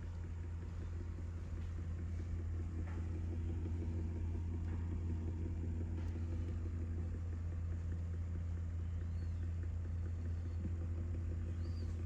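A steady low mechanical drone with a constant hum, unchanging throughout.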